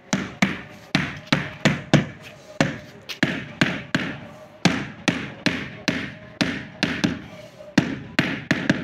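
Rubber mallet tapping a large-format porcelain floor tile over and over, about three sharp knocks a second, each with a short ring: the tile is being beaten down into its mortar bed to set it level.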